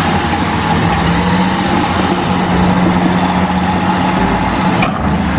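Diesel engine of an eight-wheeled Renault dump truck running with a steady drone while its hydraulics tip the bed up to dump a load of dirt.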